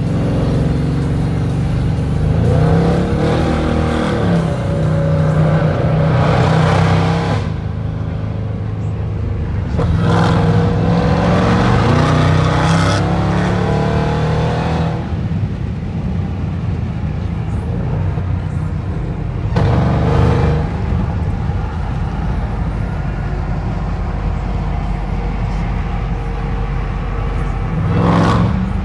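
Supercharged Hemi V8 of a Jeep Grand Cherokee Trackhawk with an open Gthaus valved cat-back exhaust, heard from inside the cabin, pulling hard under throttle in four surges: two long ones, then two short ones later. The supercharger whine rises in pitch during each pull, and a steady low exhaust drone continues between them.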